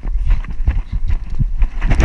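A Dutch Shepherd running flat out on a dirt path, its paws pounding and the harness-mounted camera jolting with each stride in an uneven run of thumps over a low rumble. A splash into water begins at the very end.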